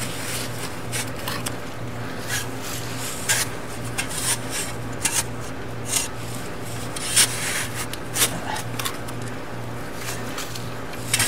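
A hand digging tool scraping and crunching into sandy soil at the bottom of a pit, with irregular scoops and scrapes, over a steady low hum.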